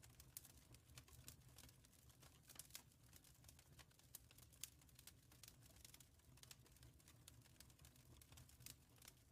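Faint wood fire crackling in a fireplace: irregular sharp snaps and pops, several a second, over a low steady rumble.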